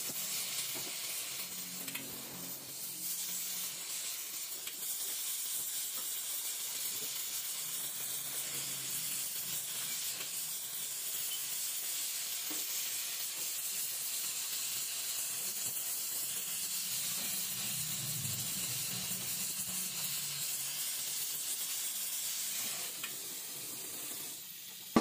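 Gas welding torch flame hissing steadily while it melts aluminium filler rod onto an engine crankcase.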